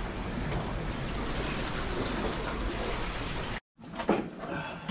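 Steady wash of sea surf with wind on the microphone. It cuts off abruptly about three and a half seconds in, followed by a brief silence and a single sharp knock.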